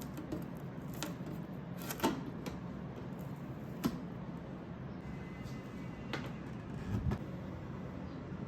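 Scattered light clicks and knocks of household objects being handled and set down, with a couple of dull thumps near the end, over a steady low hum.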